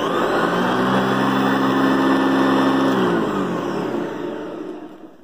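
Hoover upright vacuum cleaner switched on and running steadily with a motor hum and rush of air, then switched off about three seconds in, its motor winding down with a falling pitch until it fades out.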